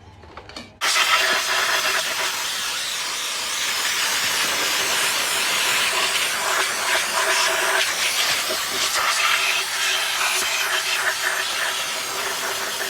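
Aerosol brake cleaner spraying in a long, steady hiss onto a removed differential to clean it. The spray starts about a second in and, apart from brief dips, keeps going almost without a break.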